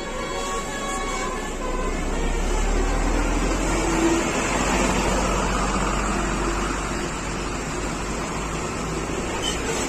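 Bus's Basuri telolet multi-tone horn finishing its tune in the first second or so, then the bus running past with a steady rush of engine and road noise.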